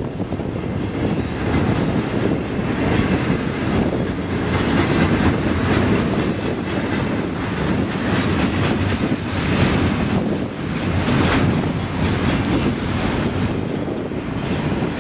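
A train running: a steady rumble with clatter of the wheels over the rails and brief louder metallic streaks now and then.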